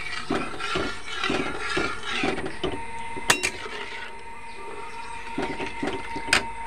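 Steel ladle stirring thin dal gravy in a metal kadai, scraping and knocking against the pan about two or three times a second, with two sharper metal clinks about three seconds in and near the end.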